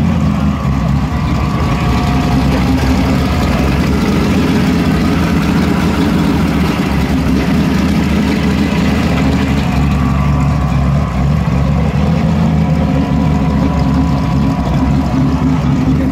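Engine of a hot-rodded early-1960s Plymouth Valiant idling steadily, heard up close.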